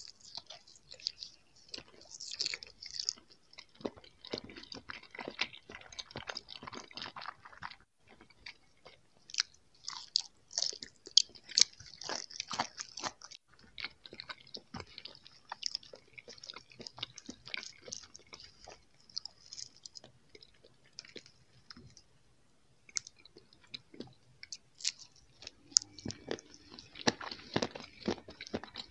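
A person biting and chewing gummy jelly candies, with irregular short clicks and crackles of the mouth working the sweets.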